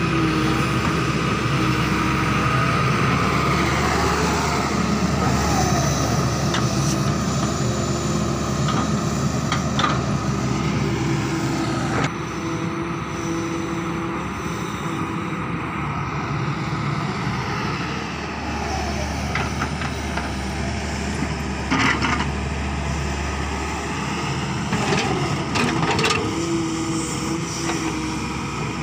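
Doosan wheeled excavator's diesel engine running steadily while its hydraulic arm digs the bucket into sandy soil, with a few sharp knocks from the bucket along the way.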